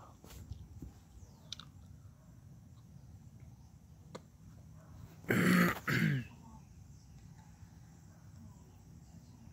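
A person clearing their throat: two short, rough bursts about half a second apart, a little over five seconds in, over a low steady background.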